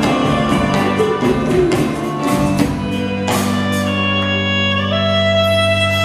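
Live ensemble music with guitar and violin: rhythmic strumming for about three seconds, then a long held chord.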